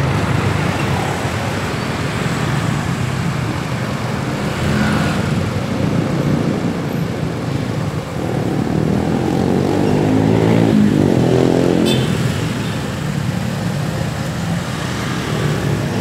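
Road traffic: a tour coach's engine running close by as the coach pulls away, with motorcycles and cars passing near. About halfway through, one engine revs up loudly for a few seconds.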